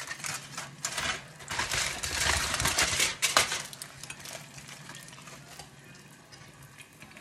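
Kitchen utensils clattering and scraping against pans and dishes: a quick, busy run of clinks for about three and a half seconds, then it dies down to a faint steady background.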